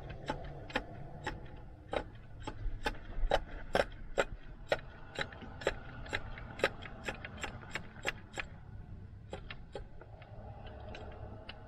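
Hand ratchet clicking in a series of short strokes as thermostat housing bolts are tightened. The clicks thin out after about eight seconds.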